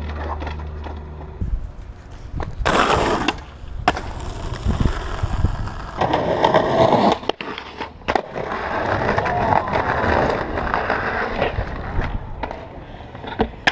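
Skateboard wheels rolling on concrete and pavement, broken by several sharp clacks of the board striking the ground as tricks are landed and bailed.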